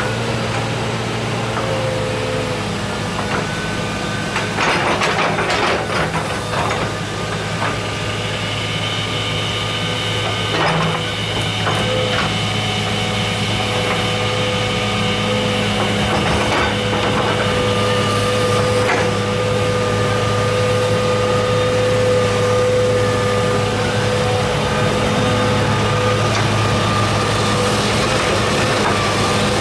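John Deere 200C LC excavator's diesel engine running steadily under load, with a steady hum and higher whining tones as the boom and bucket work. Several clanks and scrapes of the bucket in dirt and rock.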